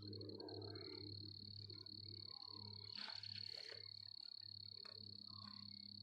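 Frogs croaking faintly in a low, pulsing rhythm of about two to three pulses a second, with a steady high-pitched tone above and a short noise about three seconds in.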